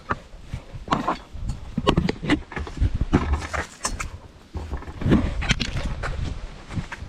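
A person climbing a hunting tree stand's ladder: irregular knocks, scrapes and rustles as boots and hands work up the rungs, with rumbling handling noise on the microphone.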